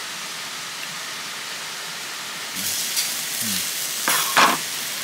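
Food sizzling on a hot camping grill over the steady rush of a nearby waterfall; from about two and a half seconds in the sizzling grows louder, with its loudest burst near the end.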